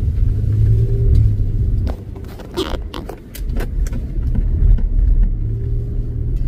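Car engine and road rumble heard from inside the moving car. The engine note rises, eases off about two seconds in, then picks up again about a second later, with a few sharp clicks in the lull.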